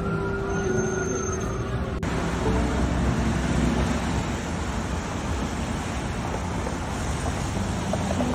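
Music with a siren's slow rise and fall for the first two seconds, then the steady wash of city traffic on a rain-wet street, faint music under it.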